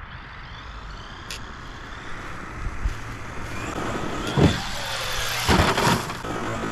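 A battery-electric RC car's motor whining and rising in pitch as it speeds up, with several sharp thumps as the truck hits the ground, the loudest about four and a half and five and a half seconds in.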